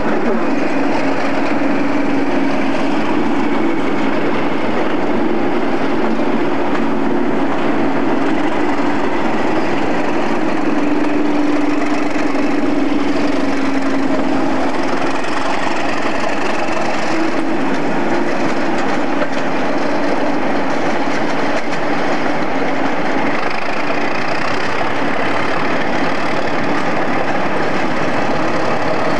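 British Rail Class 37 diesel-electric locomotives running, their English Electric V12 engines giving a loud, steady engine noise with a humming note that wavers in pitch.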